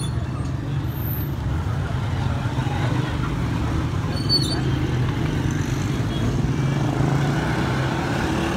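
Motor vehicle engines running steadily with street traffic noise, a low even hum.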